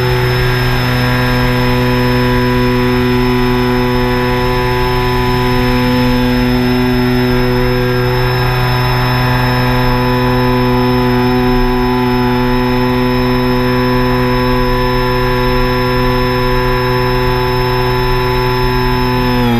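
Quadcopter drone's motors and propellers running at a steady hover, a loud even whine with many steady tones, dropping in pitch near the end as the motors slow.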